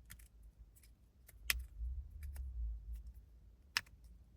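Titanium fidget slider with Teflon plates being slid back and forth by hand, its magnets snapping the slide into place with sharp clicks at irregular intervals. The two loudest clicks come about a second and a half in and near the end, over a low rumble of handling.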